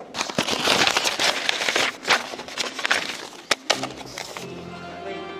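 Sheets of paper rustling and crinkling as they are gathered up close to the lectern microphone, a loud crackly handling noise; music begins near the end.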